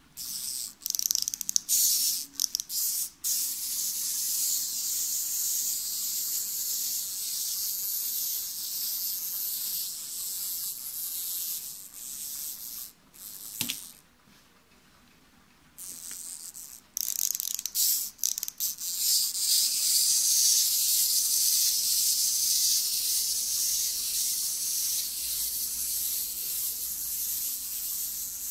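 The small wind-up clockwork motor of a cardboard 3D-puzzle giraffe toy whirring as it drives the legs, a high hissing buzz. It stutters on and off in the first few seconds, stops for about two seconds in the middle, then starts again and runs steadily.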